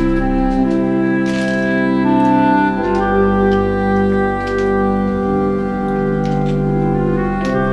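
Background organ music: slow, held chords that change every second or two.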